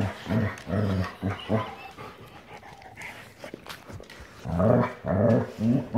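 Dogs play-fighting, growling in quick short bursts, with a lull of a couple of seconds in the middle before the growling starts again.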